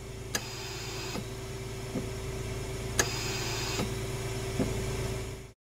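Added outro sound under the logo: a steady low electronic hum with a faint held tone, marked by a sharp click about once a second, fading out and stopping just before the end.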